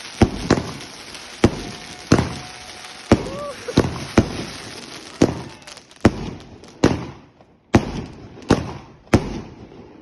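Fireworks going off: about a dozen sharp bangs at roughly one a second, each trailing off in a short echo.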